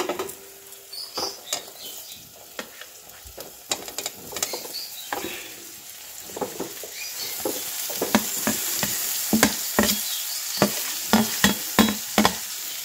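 A spatula stirring and knocking in a kadai as fried paneer and vegetables are turned into the cooked spice paste, with frying sizzle that grows louder about halfway through.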